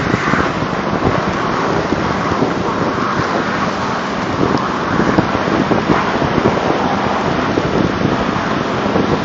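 Truck towing a homemade A-drag through snow: a steady rushing, rumbling noise of the vehicle running and the drag scraping and pushing snow, with wind across the microphone.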